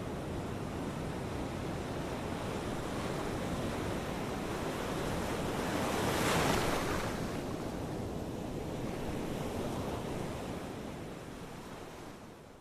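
Ocean surf: a steady rush of waves, with one wave breaking loudest about halfway through. The surf fades down near the end.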